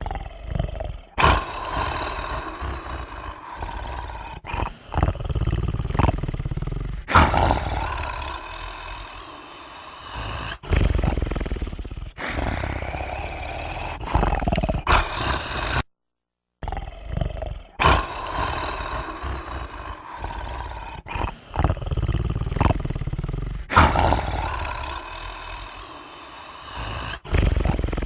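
A man snoring loudly, with rough, rasping breaths that swell and fade every few seconds. The sound cuts out briefly about halfway through.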